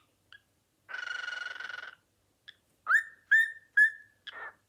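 Cockatiel calling: one harsh, drawn-out note about a second long, then three short, loud whistled chirps about half a second apart, and a brief softer note near the end.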